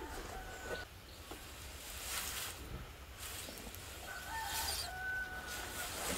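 Chickens calling: a rooster crows from about four seconds in, with shorter fowl calls at the start. Two short rustles come about two seconds in and again near the end.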